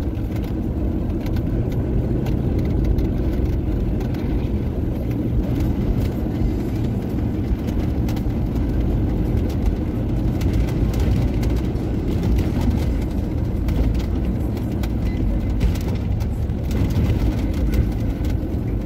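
Car interior noise while driving: a steady low rumble of engine and tyres on the road, heard inside the cabin.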